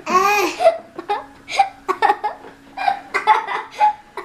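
Laughter from people in a small room: a loud, high squeal with a pitch that rises and falls at the start, then short repeated laughing bursts.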